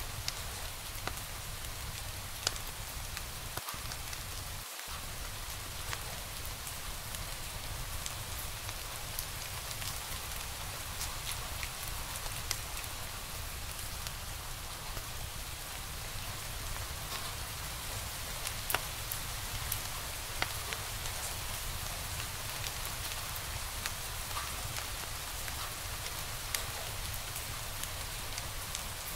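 Wood fire crackling in a fireplace: a steady hiss with scattered sharp pops and snaps, a few of them louder, over a low rumble.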